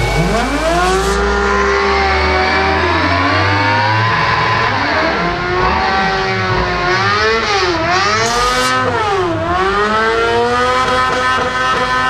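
Motorbike engine revving hard and held at high revs, its pitch rising and dipping now and then, while the rear tyre spins in pool water and throws up a spray that adds a steady hiss.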